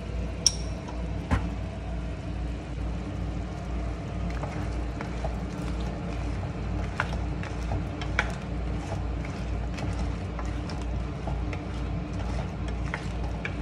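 Wooden spatula stirring whole shrimp in sauce in a frying pan, with scattered light clicks and taps, over a steady low mechanical hum. Two sharp clicks stand out in the first second and a half.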